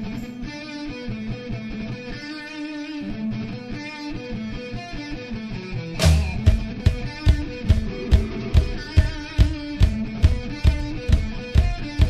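Rock song intro: guitar playing alone, then drums and bass come in about halfway with a steady beat of about two and a half hits a second.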